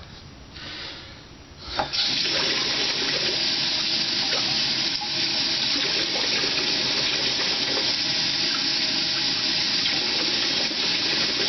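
Bathroom sink tap turned on about two seconds in, then water running steadily from it.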